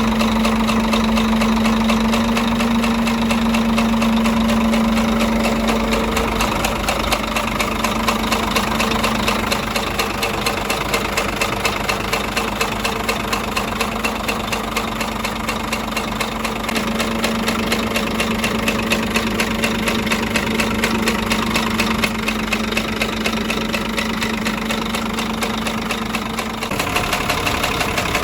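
Scania DC13 13-litre inline-six diesel idling with a regular knock, the strange noise it was brought in for; the mechanics trace it to the fifth cylinder, either the camshaft, a broken connecting-rod small-end bushing or a rod bearing. A steady whine runs under it and stops shortly before the end.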